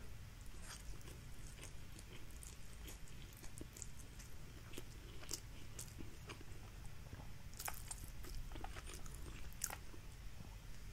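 Faint chewing of a mouthful of instant fried noodles, with scattered small clicks and ticks as chopsticks work the noodles.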